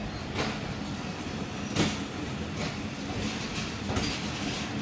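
Passenger train running through a station, heard at an open coach doorway: a steady rumble of wheels on the rails with irregular sharp clacks from the track, the loudest a little under two seconds in.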